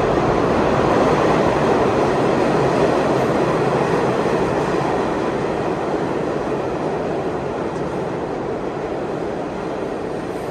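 New York City subway train running through the station, a steady loud noise that fades slowly over the whole stretch.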